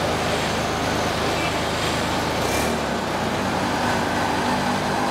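Street traffic on a wet road: a steady wash of tyre hiss and running engines.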